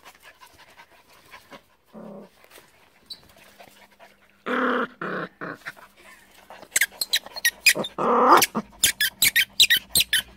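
Yorkshire terrier growling in short bursts over its tennis ball. A quick run of sharp clicks fills the second half.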